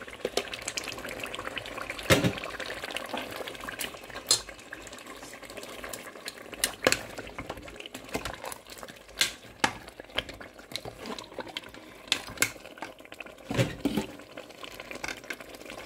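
A pot of tomato stew base, almost fried, bubbling steadily while fried chicken pieces are added and stirred in, with irregular clinks and knocks of a utensil against the pot.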